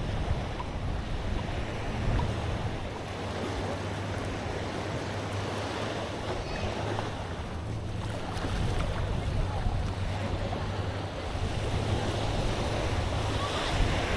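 Sea waves washing onto a beach, with wind buffeting the microphone and a steady low hum underneath.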